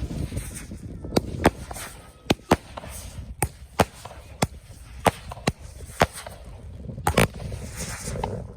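Fireworks going off: a string of sharp bangs and cracks at uneven intervals, roughly two a second, over a low background rumble.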